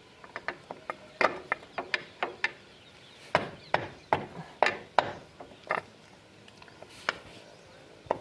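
Ratchet wrench clicking in short, uneven runs as it tightens the screws of a motorcycle's front sprocket cover.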